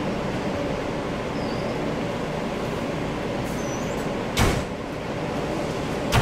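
Steady rumble of coaches at a bus terminal, with a sharp thump about four seconds in and another near the end.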